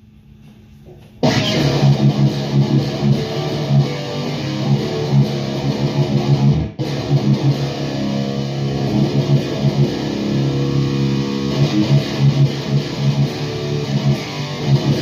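Electric guitar played with heavy high-gain distortion through a Marshall JCM800 head and Mesa 4x12 cabinet: a tight, low metal riff. It starts about a second in and stops for an instant about halfway through.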